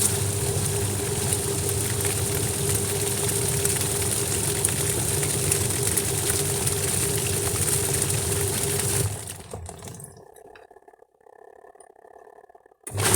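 Washing machine running: a steady low hum and a mid tone under a rushing, hissing noise. It fades out about nine seconds in and starts again abruptly near the end.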